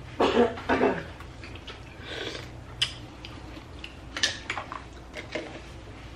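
Eating sounds from a seafood boil: hands picking through shells and food on metal trays, with scattered sharp clicks and small taps. A brief louder noise comes in the first second.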